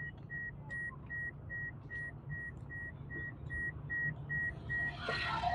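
A high electronic beep repeating steadily, about two and a half times a second, over the low rumble of a car's engine and road noise heard from inside the cabin.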